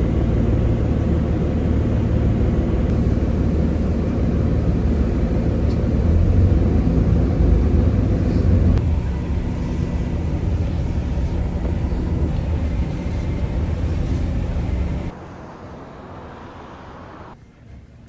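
Steady low rumble of a running vehicle. It starts abruptly, changes slightly about halfway through, then drops sharply to a much quieter rumble that dies away near the end.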